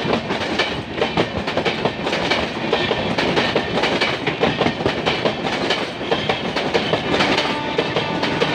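LHB passenger coaches of an express train passing close by at speed. Their wheels clatter over the rail joints in a fast, irregular run of clicks over a steady rumble.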